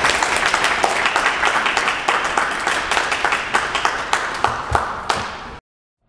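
Audience applauding: dense clapping that cuts off suddenly near the end.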